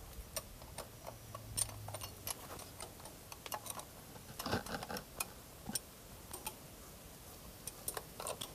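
Irregular small clicks and taps of metal and plastic as hands work on a stopped tractor's diesel fuel filter housing, with a denser cluster of handling noise about halfway through.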